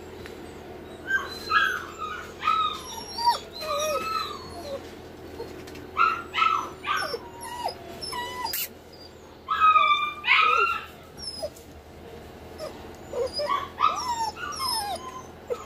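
Husky puppy whining and yelping in short, high cries that fall in pitch, coming in about four bursts with pauses between; the loudest burst comes about ten seconds in.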